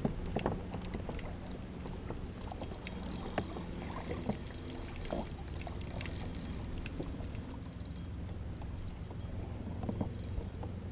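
Water moving around a fishing kayak's hull: a steady low rumble with scattered light clicks and knocks.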